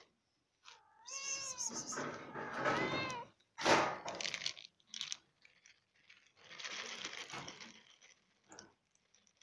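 Kitten meowing: several rising-and-falling meows in a row in the first three seconds. A loud, sharp sound follows about four seconds in, then a softer noisy stretch.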